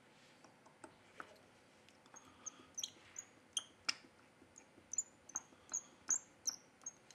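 A string of small sharp clicks and brief high squeaks from the parts of a Meizu 16X smartphone being handled and fitted back together. They come sparsely at first, then quicker and louder from about two seconds in.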